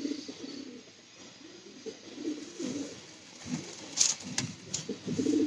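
Domestic pigeons cooing, repeated low coos one after another. Three sharp clicks come about four seconds in.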